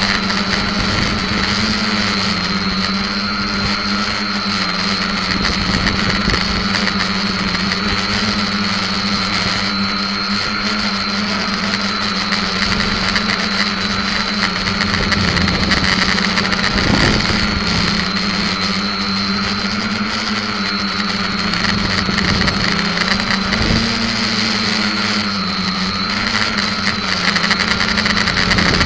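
Quadcopter's motors and propellers buzzing steadily at close range, heard from a keychain camera stuck to its underside; the pitch rises and falls a little as it flies.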